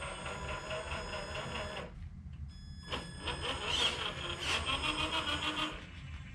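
Small electric drive motor of a Traxxas TRX6 Ultimate RC Hauler moving its rollback flatbed, a whirring mechanical whine. It runs in two stretches with a pause of about a second between them, the second louder, and its pitch rises near the end.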